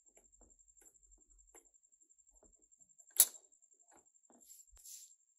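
Faint small clicks and ticks, with one sharp loud click a little over three seconds in, over a faint steady high-pitched whine.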